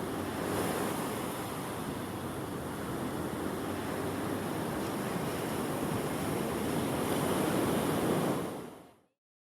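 Steady rushing noise like surf, fading out about eight and a half seconds in and ending in silence.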